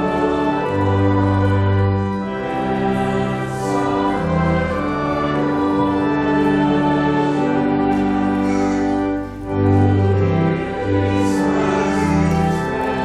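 A congregation singing a hymn with church organ accompaniment: held chords over a deep bass line, changing every second or two.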